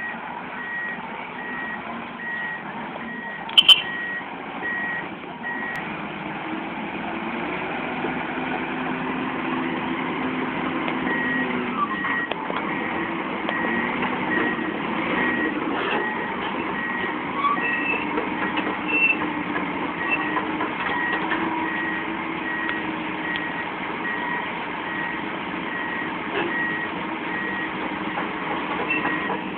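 Komatsu bulldozer and PC200 hydraulic excavator diesel engines running as the machines move on their tracks, with a warning alarm beeping about twice a second. The alarm stops for several seconds a little before a third of the way in, then resumes; the engine pitch rises and falls, and a sharp click sounds a few seconds in.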